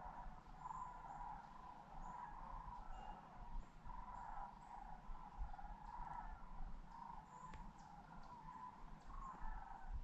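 A distant flock of sandhill cranes calling: many faint calls overlapping one after another without a break. A few faint high chirps sound over them.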